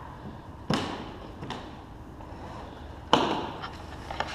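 Sharp knocks and lighter taps on the plastic hull of a fishing kayak as its anchor trolley ring and line are handled. There is one knock about a second in, a louder one about three seconds in, and small taps between them and near the end, each ringing briefly in the room.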